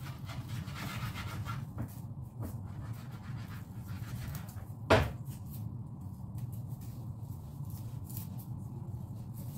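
Dried taro leaves being torn and crumbled by hand, a faint dry rustling and crackling, with one sharp knock about five seconds in.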